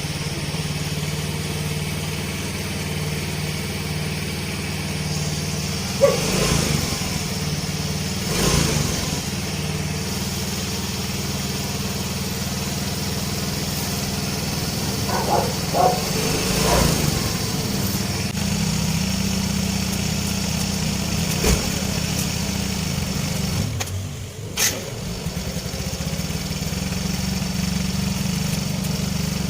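Yamaha Mio i 125 scooter's single-cylinder four-stroke engine idling steadily after a top overhaul, with a few brief sharp clicks over it. The mechanic pronounces the rebuilt engine free of its noise and exhaust smoke.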